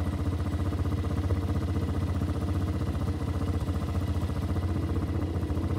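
ATV engine running steadily at an even speed, with no revving.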